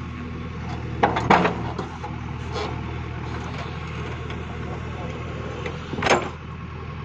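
JCB digger's diesel engine running steadily under load, with short sharp knocks around a second in and again about six seconds in as the bucket and arm work.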